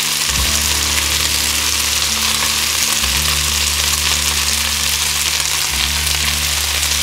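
Potato strips and chicken pieces frying in a pan with a steady sizzle, while a little more vegetable oil is poured in during the first few seconds. Underneath, a low hum cuts out and back in every two to three seconds.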